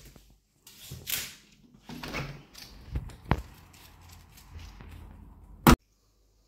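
A patio door being unlatched and pulled open, with a sharp click of the handle and scattered rustling and shuffling. A short, loud knock comes near the end.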